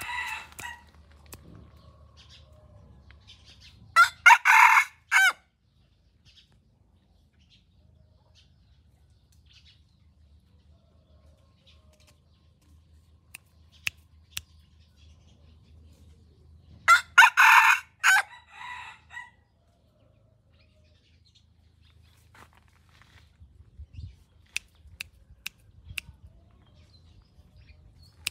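Junglefowl-type rooster crowing twice, each crow short, about thirteen seconds apart, with a few faint clicks in between.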